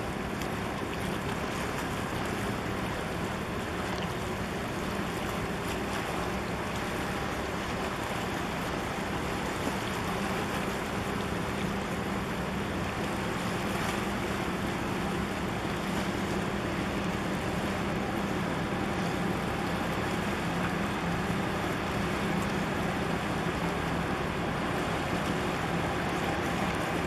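Container ship under way close by: a steady low drone from its engines, mixed with wind and water noise, growing slightly louder in the second half.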